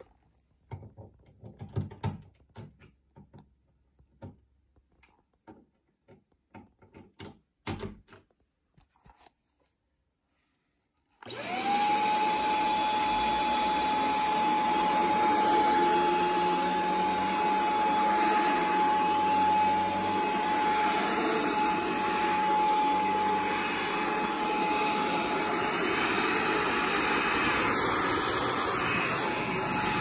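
Scattered light clicks and knocks, then about eleven seconds in the Shark Stratos corded stick vacuum switches on. Its motor spins up within a moment to a steady high whine with a hiss, and keeps running steadily as it is pushed over carpet.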